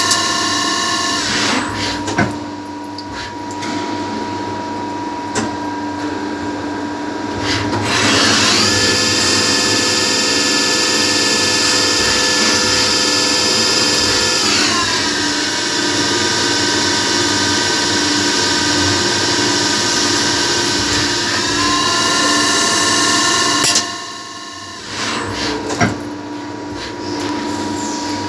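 Gang-tool CNC lathe running a machining cycle with coolant flowing: its drive whine steps up in pitch about eight seconds in, glides down again around fourteen seconds, and drops away briefly near twenty-four seconds before the machine runs on. A few clicks sound as the slides move.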